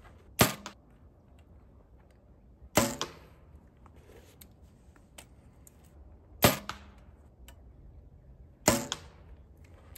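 Four compound-bow shots, spaced a few seconds apart. Each is a sharp crack as the string is released, followed about a fifth of a second later by a smaller knock as the arrow strikes the target 20 yards away.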